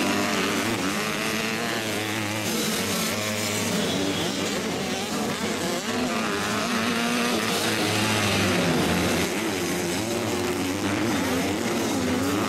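Motocross bike engines revving on the track, the pitch repeatedly rising and falling as riders open and close the throttle. More than one engine sounds at once.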